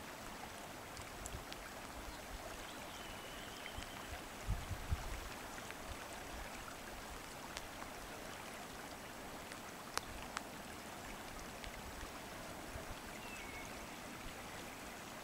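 River current running over shallows: a steady, faint rush of flowing water. A few low bumps come about four and a half seconds in, with a sharp little click about ten seconds in.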